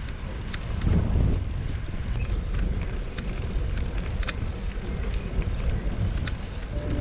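Wind buffeting the microphone on a moving bicycle: a low, rumbling rush with scattered sharp ticks. Music comes in near the end.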